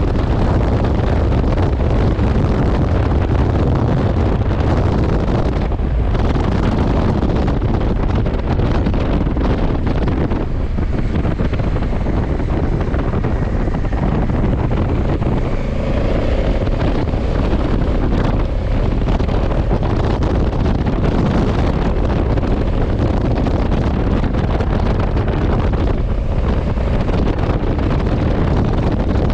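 Steady wind rush over an action camera's microphone while riding a motorcycle at speed, with the 2020 Honda CRF1100 Africa Twin's parallel-twin engine running underneath.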